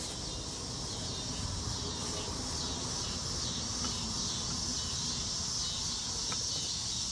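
Chorus of cicadas buzzing, a steady high drone that swells and eases in slow waves.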